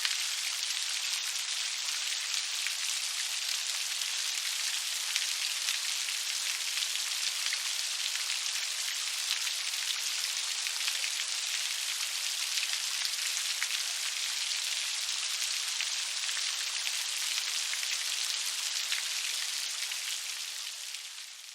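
Steady rain falling, a dense even patter of drops, which fades out near the end.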